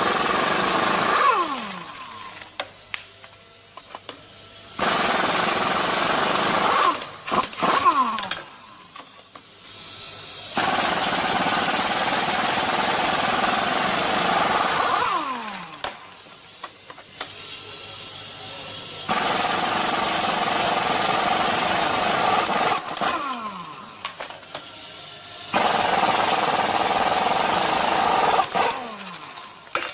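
Ingersoll Rand 2235TiMAX half-inch air impact wrench hammering in bursts of a few seconds, about five trigger pulls, each ending in a falling whine as the air motor spins down after the trigger is released.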